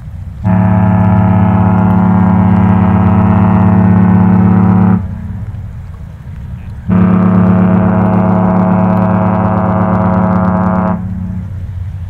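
The Norwegian Escape's ship's horn (typhon) sounds two long, deep blasts as the ship departs port. Each blast lasts about four seconds, with a gap of about two seconds between them.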